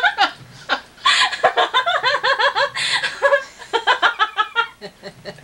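An elderly woman laughing, a long run of short repeated bursts that tails off near the end.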